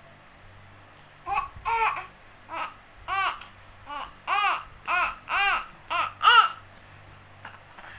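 A baby babbling: a string of about ten short, high-pitched vocal sounds, each rising and falling in pitch, starting about a second in and stopping a little before the end.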